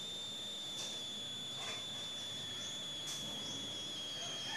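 Steady high-pitched insect drone, with a few faint short clicks over it.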